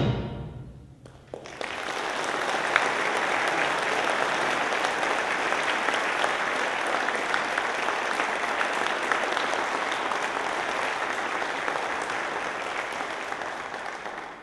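The last chord of a concert band of winds, brass and timpani rings away in the hall, then audience applause starts about a second in and goes on steadily, tapering off near the end.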